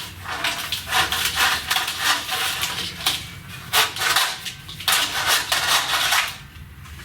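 Hands working loose a car's wiring harness and nearby parts: irregular clattering and rattling of metal and plastic pieces with many short knocks, dying down near the end.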